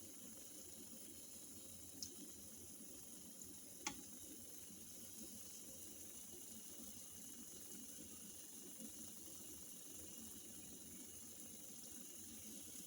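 Near silence: steady room hiss, broken by two faint short clicks, one about two seconds in and a slightly louder one about four seconds in.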